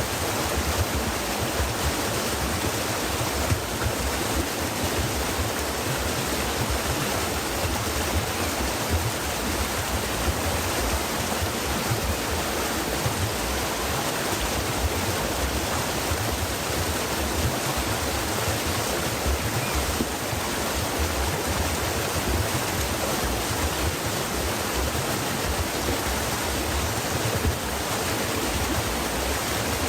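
Stream water flowing and splashing in a steady, unbroken rush.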